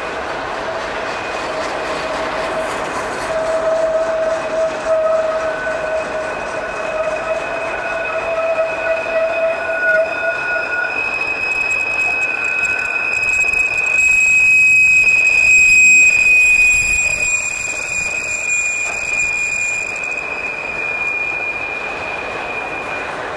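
Freight train rolling past with its wheels squealing against the rail: a steady high screech that holds nearly throughout, and a lower squeal that fades out about ten seconds in.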